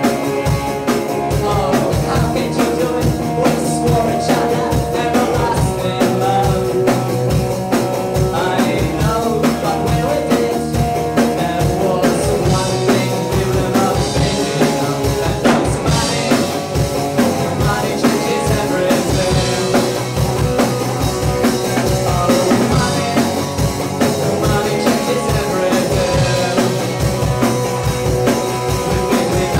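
Live rock band playing loud and steady: electric guitar, bass guitar and drums driving a regular beat.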